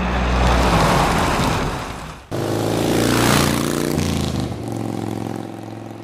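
Lorry sound effect: a truck engine running as it drives past. About two seconds in it cuts abruptly to a second engine recording whose pitch steps up and down, and this cuts off suddenly.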